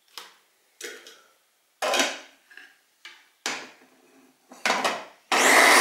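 A series of separate plastic knocks and clatters as watermelon chunks are tipped into a plastic mini-chopper bowl and the lid and motor unit are fitted. Near the end, the Philips mini chopper's motor starts suddenly and runs steadily, beginning to purée the watermelon.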